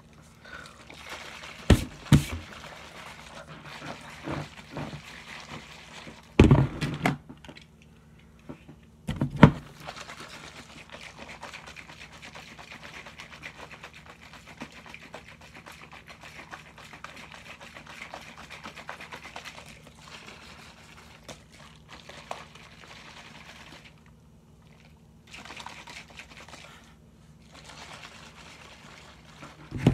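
Plastic shaker cup of mixed energy-drink powder and water being closed and shaken: a couple of sharp clicks and two heavy thumps in the first ten seconds, then a long stretch of steady sloshing and rattling inside the cup that stops briefly and starts again near the end.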